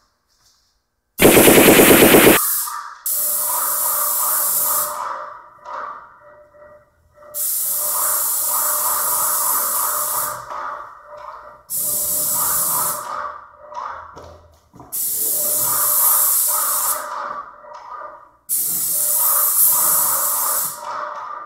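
Airless paint sprayer with a finishing tip spraying in about five bursts of hiss, each two to three seconds long, as the gun trigger is pulled for each pass and released between passes. About a second in there is a loud, rapid rattle lasting about a second.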